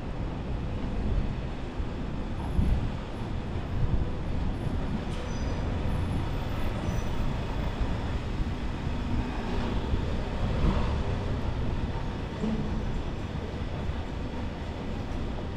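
Tram running along the street, a steady rumble.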